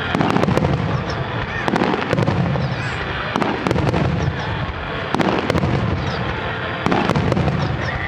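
Starmine fireworks display: many shells bursting in quick succession, a dense run of sharp bangs several a second over continuous crackle.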